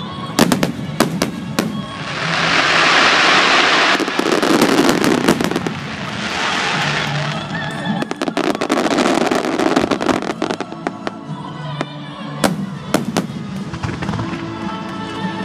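Fireworks display: repeated sharp bursts and crackling from aerial shells, with two longer spells of dense hissing crackle, over background music.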